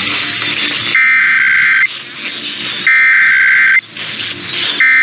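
Emergency Alert System SAME header, the digital data burst that opens an alert, received over the radio: a harsh two-tone data screech sent in bursts just under a second long with about a second's gap between them, two full bursts and a third starting near the end, over steady hiss.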